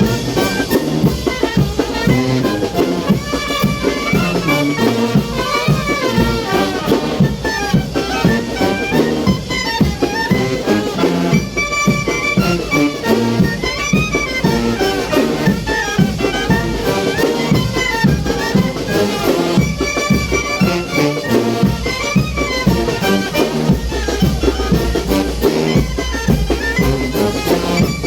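Mexican brass band (banda de viento) playing chinelo dance music: a brass melody of trumpets and trombones over a steady drum beat.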